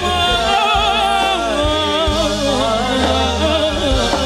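Live gambus (Arabic-style orchestra) music playing a sholawat: an ornamented melody line that wavers and trills in pitch, over bass and hand-drum beats.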